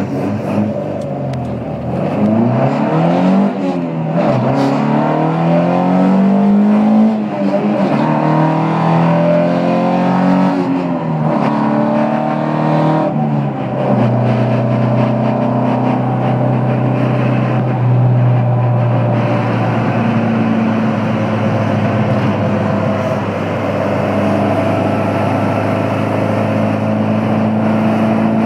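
Sunbeam rally car's engine heard from inside the cabin, revving up hard through several gear changes, the pitch climbing and then dropping at each shift. About halfway through it settles to a steady note at constant speed.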